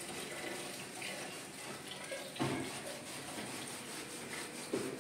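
Kitchen tap running into a sink, a steady rush of water, with a sharp knock about halfway through and a lighter one near the end.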